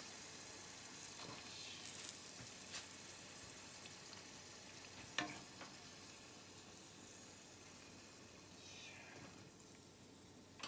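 Tendon sauce simmering with tempura pieces in a frying pan: a steady sizzle that slowly fades. A few sharp clicks, a couple of seconds in and again about five seconds in, come as the chopsticks work the tempura in the pan.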